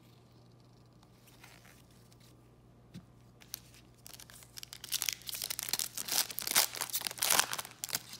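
Foil trading-card pack wrapper crinkling and tearing as it is pulled open, starting about halfway in and loudest near the end. Before that, only a light click or two.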